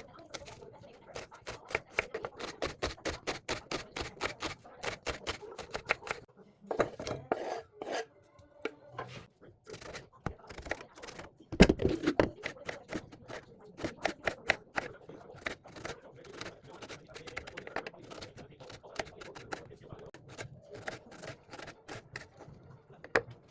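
Knife chopping on a cutting board in quick, even strokes, about four or five a second, pausing briefly now and then, with one louder knock about halfway through.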